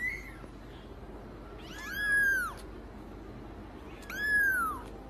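Kitten meowing: two high-pitched mews that rise and fall in pitch, about two seconds apart, after the tail end of another at the very start.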